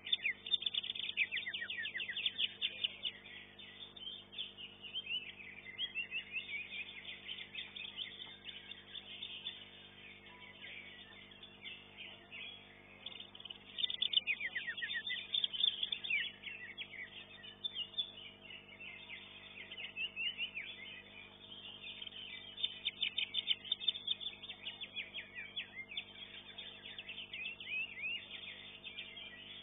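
Cucak hijau (greater green leafbird) singing in bursts of rapid, high chirps and trills, with short lulls between the phrases. A faint steady hum runs underneath.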